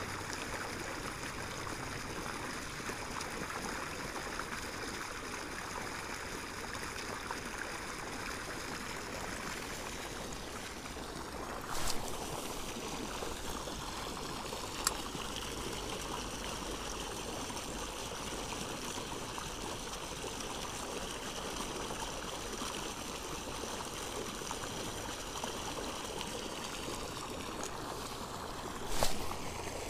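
Steady splashing rush of water from a pipe spraying a jet of lake water up into the air and back onto the surface. Two brief knocks cut through it, about twelve seconds in and again near the end.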